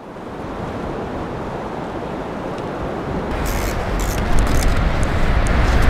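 Surf breaking on a beach: a steady rush of waves that grows louder. About halfway through, a deeper low rumble joins it, with short crackles.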